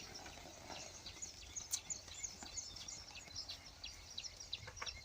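Small birds chirping: many short, high chirps in a steady scatter over faint outdoor background noise.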